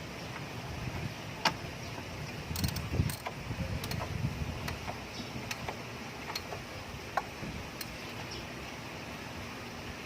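Scattered sharp metallic clicks and clinks from hand tools and parts being handled during the repair, over a steady low background rumble.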